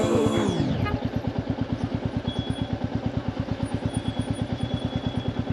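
Royal Enfield motorcycle engine running slowly under the rider, an even beat of about ten exhaust pulses a second.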